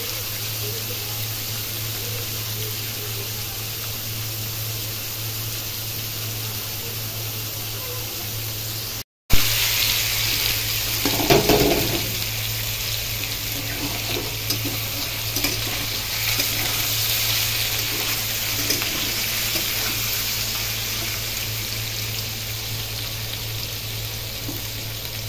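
Paneer cubes frying in hot oil in a kadai: a steady sizzle that breaks off briefly about nine seconds in and comes back louder, with a metal spatula knocking and scraping against the pan as the cubes are stirred.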